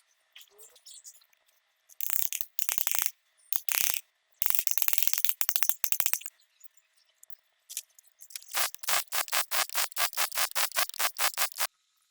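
Hand tools working on metal axle parts: three short runs of rapid clicking, then a steady run of quick, sharp strokes, about five a second, that stops abruptly near the end.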